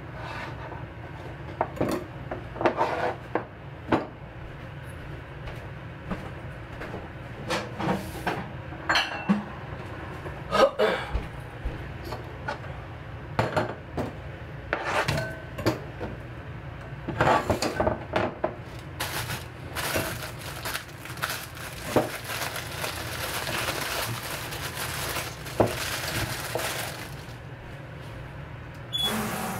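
Kitchen clatter: irregular knocks and clinks of a knife on a cutting board and a ceramic bowl handled in a stainless-steel sink. A stretch of steady hiss runs past the middle.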